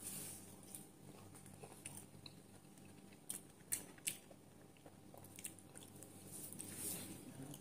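Quiet chewing of a crispy fried corned beef patty: a few scattered crunchy clicks, the sharpest about three and a half to four seconds in, over a low steady hum.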